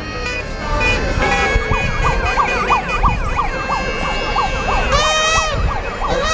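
Several sirens sounding at once, overlapping tones: some yelping quickly up and down, one holding steady, and a long rising-and-falling wail about five seconds in.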